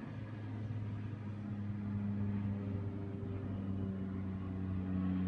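Twin-turboprop military transport plane flying low overhead, its engines giving a steady low drone that grows louder toward the end.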